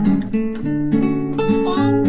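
Background instrumental music, a melody of plucked-string notes.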